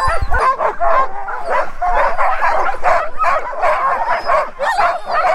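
Many harnessed sled dogs yipping, whining and barking all at once in a dense, unbroken chorus of high, overlapping yelps: the excited clamour of a team waiting to run.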